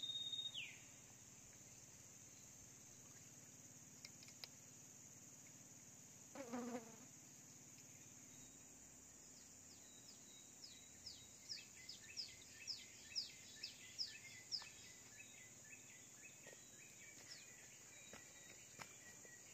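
Faint, steady high-pitched drone of insects. Around the middle comes a run of short, falling chirps, about two a second.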